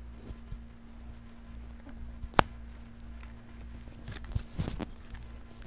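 Handling noise from a book and a handheld microphone being moved: one sharp click about two and a half seconds in, then a cluster of soft knocks and rubs near the end, over a steady low electrical hum.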